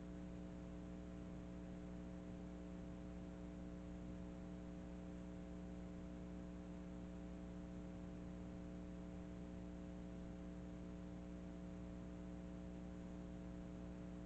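Steady electrical mains hum with a faint hiss, unchanging throughout; no other sound.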